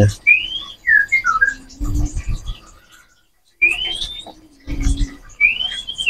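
White-rumped shama (murai batu) calling with short, loud rising whistles, a handful of them with a pause midway. Two low dull thumps come in between.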